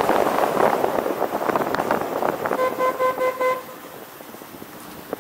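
A car horn sounds one steady note for about a second, some two and a half seconds in, over rough wind buffeting on the microphone of a moving camera. The wind noise drops away sharply just after the horn.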